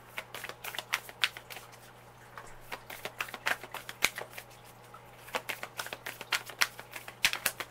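A deck of Moonology oracle cards being shuffled by hand: runs of quick card snaps and slaps, in several bursts with brief pauses between them.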